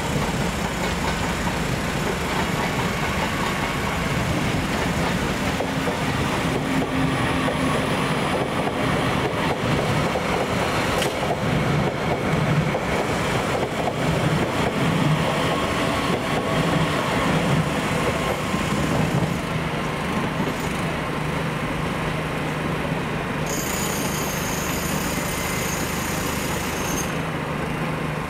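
Passenger train running at a station: a steady rumble with a low hum. A high-pitched whine joins near the end.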